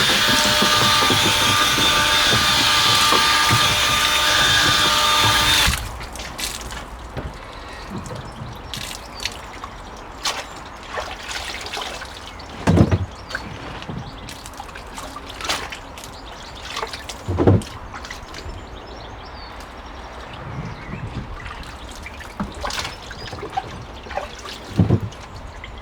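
Water running hard into a washing tub with a steady rush and a faint whine, cutting off suddenly about six seconds in. Then quieter trickling and splashing as beetroots are handled in the water, with a few dull knocks.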